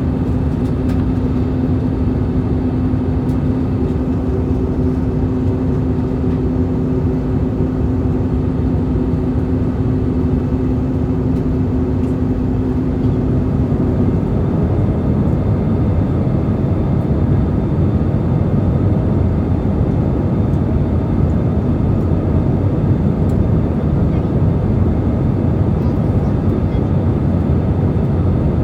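Steady cabin noise of an Airbus A320 on approach: rushing airflow and the IAE V2500 engines. A steady two-note hum rides over it and stops about halfway through, leaving the broad rushing noise.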